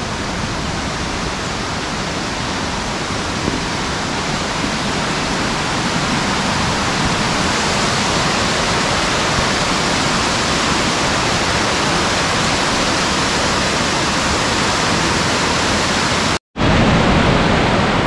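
Waterfall cascade: white water rushing over mossy rocks in a loud, steady rush, growing a little louder about six seconds in. It cuts out for an instant near the end and comes straight back.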